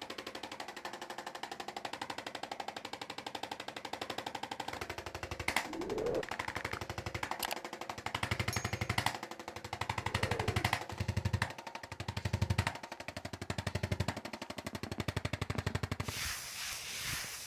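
Percussive massage gun hammering rapidly and evenly over a motor hum, worked into tight glute muscle. It pulses deeper each time it is pressed in, and its pitch rises briefly twice.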